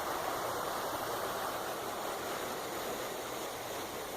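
Kinderhook Creek's water flowing, a steady rushing.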